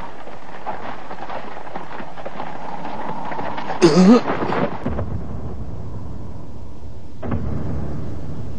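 Cartoon sound effects: a steady rushing rumble, a short cry about four seconds in, then a deeper low rumble.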